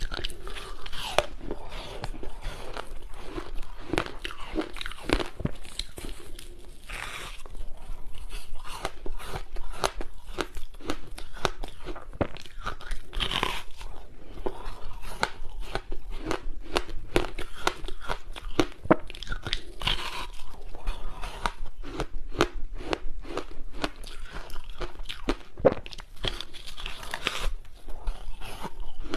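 Close-miked biting, crunching and chewing of frozen passion-fruit ice: a dense, continuous run of sharp cracks and crunches as the hard ice pieces break between the teeth.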